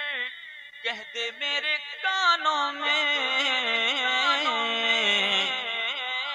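A man singing a naat unaccompanied in long, drawn-out, wavering melodic phrases with no clear words. A short broken phrase comes first, then a long held, gliding line from about two seconds in.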